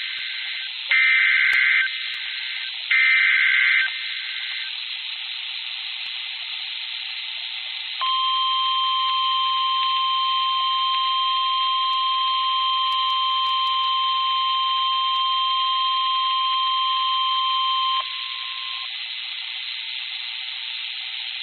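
Emergency Alert System broadcast: the last two screeching digital header bursts, about a second each, then radio hiss, then a steady single-pitch warning alert tone that holds for about ten seconds before cutting off back to hiss.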